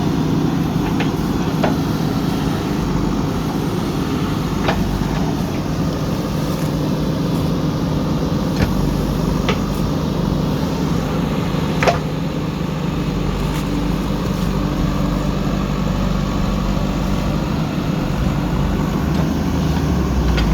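Diesel engine of a JCB 3DX backhoe loader running steadily, with a few short sharp knocks scattered through, the loudest about twelve seconds in.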